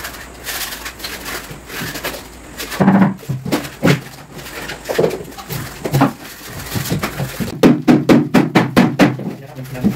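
Old paint and skim coat being scraped off a wall, with scattered knocks. Near the end comes a fast run of hammer blows against the wall, about four a second, chipping off the old coating.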